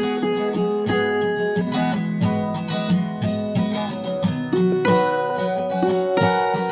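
Background music: an acoustic guitar plucking and strumming a steady run of notes.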